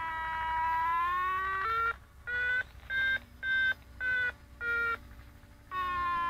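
Electronic variometer tones from the PitLab Sky Assistant telemetry. A steady tone near 1 kHz wavers slightly in pitch, then breaks into about five short, higher beeps, and near the end goes back to the steady lower tone. On a variometer, beeping signals the glider climbing in lift, and the steady lower tone signals sinking.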